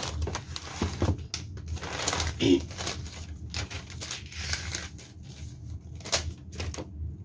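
Plastic bag being handled and unwrapped, crinkling and rustling in a string of irregular crackles.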